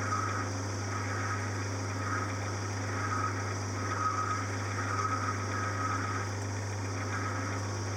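Small metalworking lathe running with a steady motor hum, a parting-off tool cutting into brass bar stock with faint, recurring scraping.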